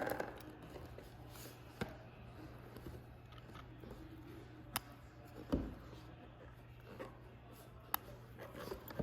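A few sharp light clicks and small scrapes of a tool working the case back off a wristwatch, with a steady low hum underneath.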